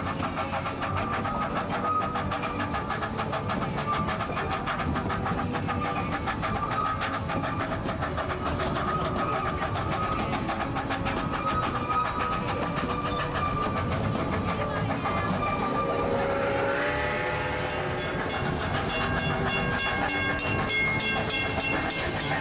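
Narrow-gauge steam train running, its passenger cars clicking and rattling over the rail joints. About sixteen seconds in, a high whistling sound of several tones rises in pitch and then holds steady.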